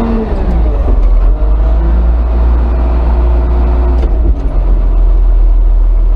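Front wheel loader's diesel engine working under load, heard from inside the cab, as the boom lifts a full bucket of snow; it gets louder about a second in and then holds steady.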